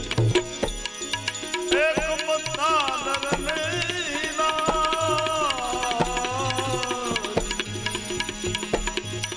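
Devotional bhajan music: hand-drum strokes keep a steady rhythm, and a melody that glides between notes comes in about two seconds in and fades near seven seconds.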